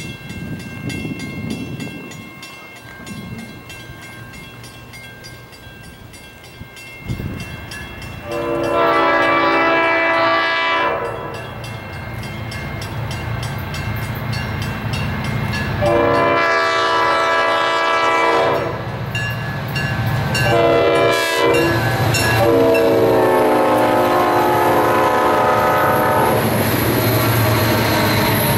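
Diesel freight locomotive's air horn sounding the grade-crossing signal as the train approaches: two long blasts, a short one and a final long one, each louder than the last. Near the end the locomotives pass close by with a low engine rumble over the roll of the tank cars' wheels.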